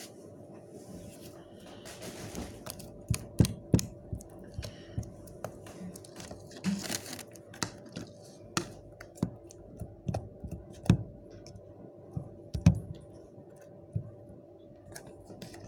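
Irregular clicks and knocks of small objects and containers being handled and set down, with brief rustles about two and seven seconds in.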